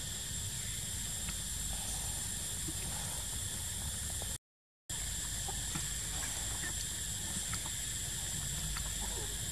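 Steady high drone of forest insects with a few faint chirps scattered through it; the sound cuts out completely for about half a second around the middle.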